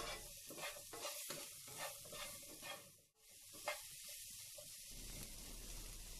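Diced onion, capsicum and green chillies sizzling faintly in a little oil in a nonstick frying pan while a spatula stirs and scrapes them around. There is a brief break about halfway.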